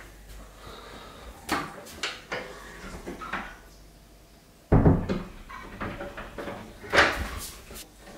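A wooden door's lever handle and latch being worked, with several clicks and knocks and two louder clunks of the door about five and seven seconds in.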